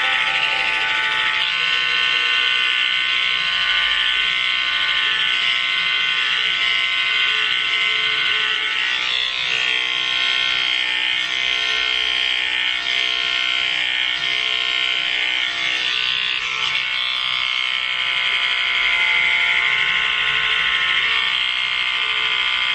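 Electric hair clippers running with a steady buzz while cutting through thick grown-out hair.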